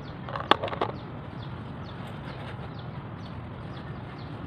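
A short clatter of sharp clicks in the first second as a spoon case and its wrapper are handled, then steady background with faint, repeated high bird chirps.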